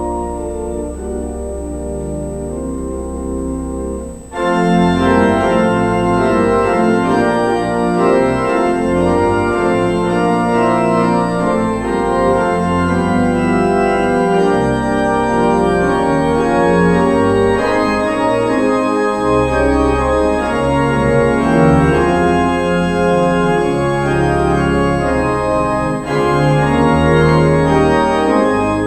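Church pipe organ playing slow, sustained chords with deep bass notes. About four seconds in it suddenly becomes louder and fuller.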